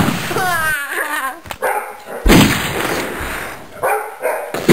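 A dog whining and barking: a wavering whine in the first second or so, then sharp loud sounds about two seconds in and again near the end.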